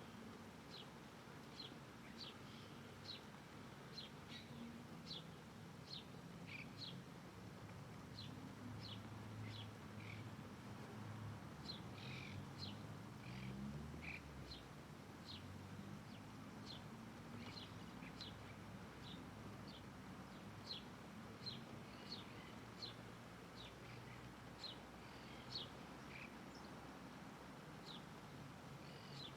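A small bird repeating short, high chirps that slide down in pitch, about one or two a second, over a faint low rumble.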